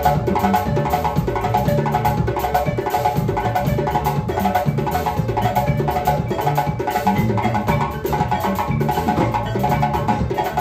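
Live band playing a steady groove: a wooden-keyed mallet instrument, played by two people, repeats a bright figure over bass guitar, electric guitar, drum kit and djembe.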